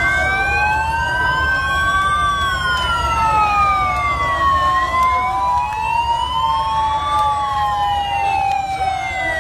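Several escort vehicle sirens wailing at once, slow rising-and-falling sweeps out of step with one another, over a steady low rumble.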